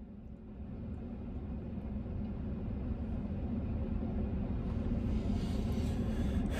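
A vehicle's low engine rumble growing steadily louder, heard from inside a parked truck's cabin, with a hiss building over the last couple of seconds.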